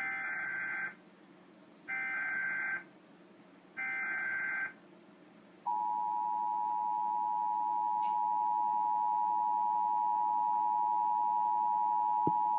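Emergency Alert System test signal. First come three short bursts of the SAME header, the digital data tones that trigger alert receivers, each about a second long. A couple of seconds after the third burst, the EAS two-tone attention signal starts: a steady, loud dual tone of 853 and 960 Hz held without a break.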